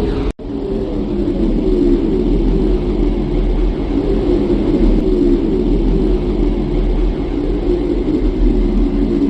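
Steady, wavering rumbling drone with a hum riding on it, which breaks off for an instant just after the start. It is an ambient sound track presented as the sound of Earth's rotation heard from space.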